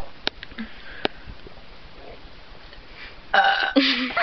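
A person burping: a loud, drawn-out burp with a steady pitch, lasting nearly a second, near the end. It follows a few sharp clicks in the first second.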